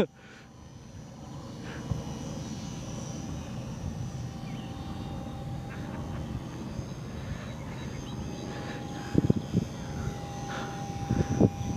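HobbyZone Super Cub S radio-controlled trainer plane in flight, its electric motor and propeller giving a steady thin whine that grows louder over the first couple of seconds.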